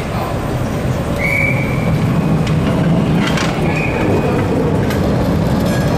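Articulated electric tram passing close by, a steady rumble of its wheels on the rails with two short high squeals about one and four seconds in and a few clicks around three seconds.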